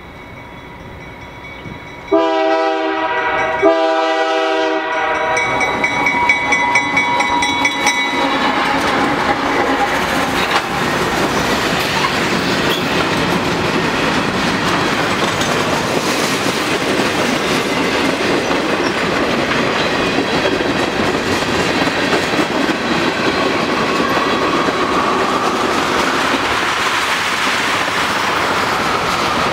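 Freight train led by GE diesel locomotives sounds its horn in two blasts about two seconds in, the horn tones lingering for a few seconds as the locomotives pass. The loaded freight cars then roll by with a steady clattering of wheels over the rail joints. A faint wheel squeal rises near the end.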